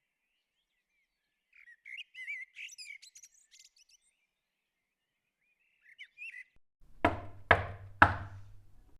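Birds chirping and twittering for a couple of seconds, with a few more chirps about six seconds in. Then come three loud knocks on a door, half a second apart, near the end.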